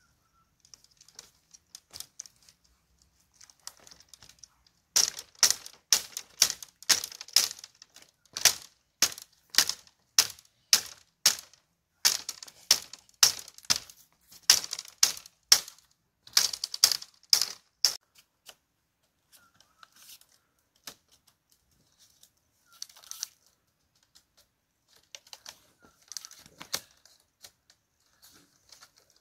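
Tool work on bamboo: a fast run of sharp knocks, about two to three strikes a second, that starts a few seconds in and stops after some thirteen seconds, followed by a few scattered lighter taps.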